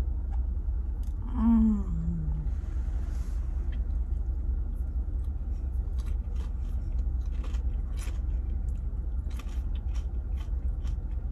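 Chewing and wet mouth clicks from eating a Korean cheese corn dog, over the steady low rumble of an idling car. About a second in, a short hum from the eater falls in pitch.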